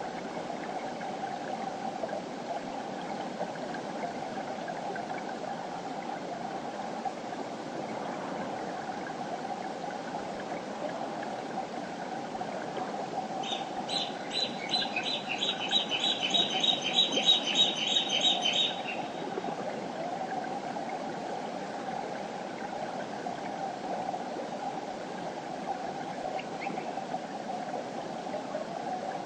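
Mountain river flowing steadily with a constant rushing sound. About halfway through, a bird calls a fast run of repeated high notes for about five seconds.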